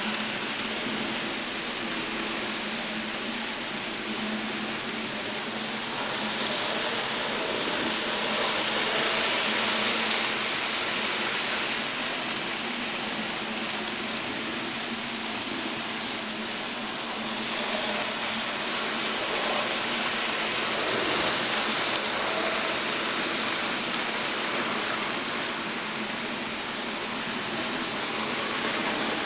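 Minitrix N gauge model trains running round the layout: a steady whirring rush of small electric motors and wheels on the rails, swelling gently now and then.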